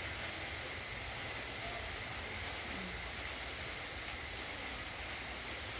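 Steady background hiss with a low rumble beneath it, and no distinct event standing out.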